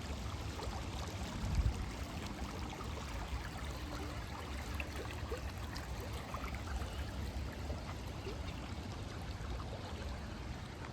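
Steady rushing of running water, with a low rumble underneath and a brief low bump about a second and a half in.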